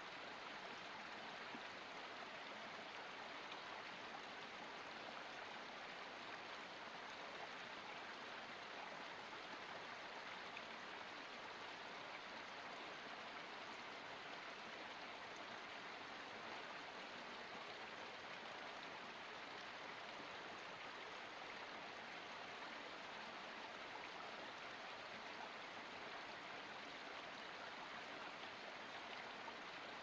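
Small forest spring trickling and splashing down over rocks in a steady, unbroken flow.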